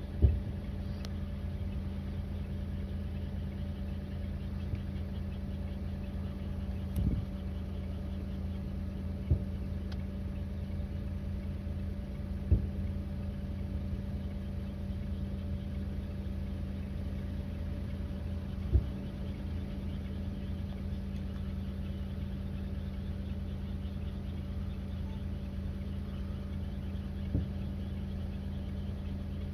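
Distant aerial fireworks shells booming about six times, spaced several seconds apart, the first and loudest right at the start. They sound over a steady low hum and faint high chirping.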